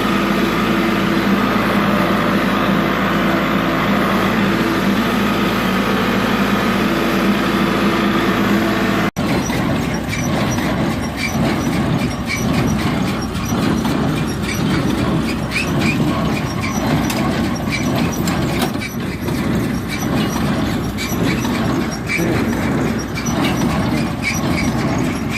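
Tractor engine running steadily at hay baling. About nine seconds in, the sound cuts to a rougher machinery clatter with many quick light ticks and squeaks, the baler working in the field.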